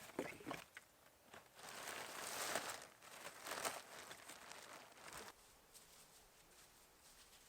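Crinkling and tearing of debris being pulled and handled, with scattered clicks and crackles, stopping about five seconds in.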